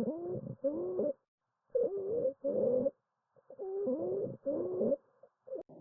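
Wheezing lung sounds: several musical, whistling tones at once that slide in pitch, coming in short paired bursts of breathing in and out with silent gaps between breaths.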